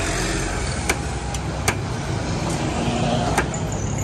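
Steady street noise with a low traffic rumble, broken by three sharp clicks.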